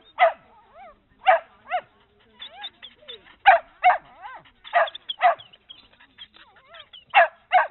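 Mixed-breed dog barking in quick double barks, about five pairs, with high wavering whines between them.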